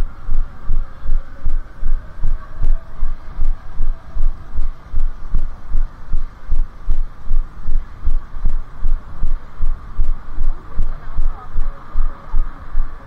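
A runner's footfalls jolting a body-worn camera: a steady low thump about three times a second, at running cadence. Faint city traffic hum behind.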